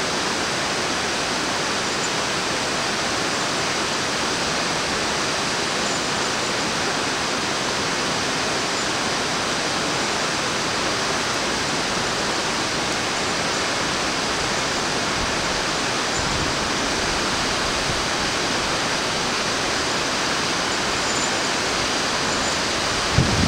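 Steady rush of flowing river water from the Sorgue. Near the end, a short buffet of wind hits the microphone.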